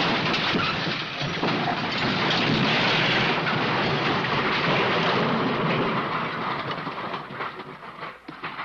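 Disney's 'Elephant Smash' crash sound effect: a long, dense crash of smashing and tumbling debris that starts suddenly, then dies away into scattered clattering pieces near the end.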